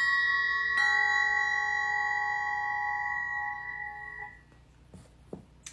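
A quartz crystal singing pyramid struck twice, two notes a moment apart, ringing like a bell with several clear steady overtones. The second strike, about a second in, adds lower tones, and the ringing fades out about four seconds in.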